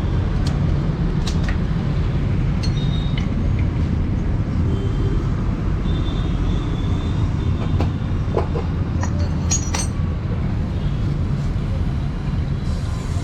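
Steady low mechanical rumble with scattered sharp metal clinks of tools being handled during motorcycle servicing.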